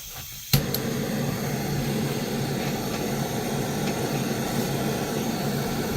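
Heat gun switched on with a click about half a second in, then running with a steady blowing hum, heating a tight 3D-printed plastic socket to soften it before a ball joint is pushed in.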